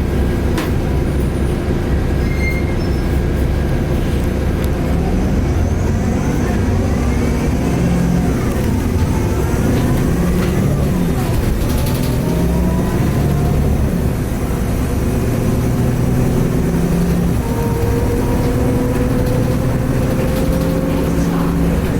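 Cummins ISL diesel of a 2010 Nova Bus LFS articulated city bus under way, heard from inside the cabin, with its turbocharger whine rising and falling in pitch several times as the bus speeds up and slows; a rising whine near the end.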